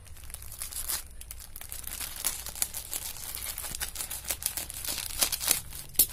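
Plastic film wrapper of a tissue-paper packet crinkling and tearing as it is worked open by hand, an irregular run of crackles with the sharpest ones near the end.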